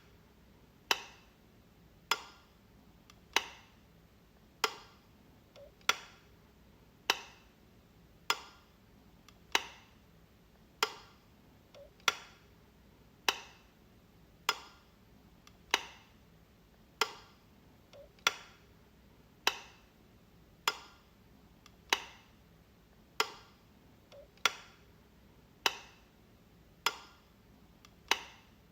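Light switch being flicked, a single sharp click about every 1.2 seconds in an even, unbroken rhythm.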